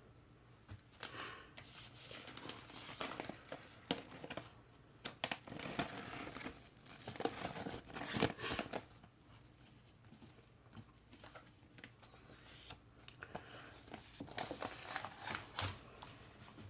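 Crinkling and rustling of vinyl record packaging being handled, in irregular bursts with sharp crackles, busiest in the middle of the stretch and again near the end.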